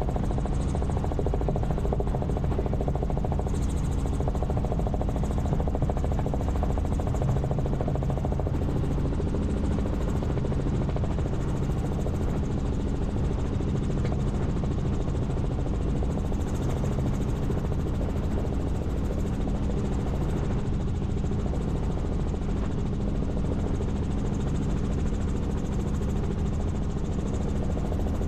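Helicopter in steady cruising flight: a constant drone of engine and rotor with a steady low hum, unchanging throughout.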